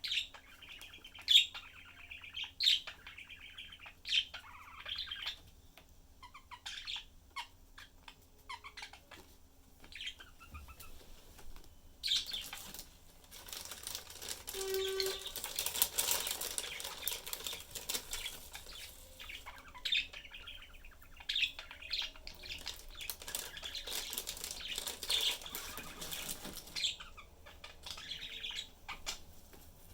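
Budgies chirping in short, sharp calls, then a long, dense stretch of noisy rustling and chatter from about twelve seconds in, with sharp chirps again near the end.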